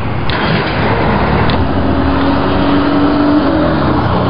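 Loud, steady outdoor street noise with road traffic, and a low hum held for a couple of seconds in the middle.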